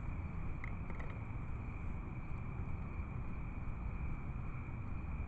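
Steady low background rumble with a faint, steady high-pitched tone over it, and two faint clicks about a second in.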